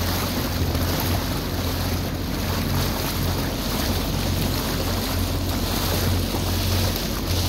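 Motorboat engine running steadily at cruising speed, a constant low drone, with water rushing and splashing along the hull and wind buffeting the microphone.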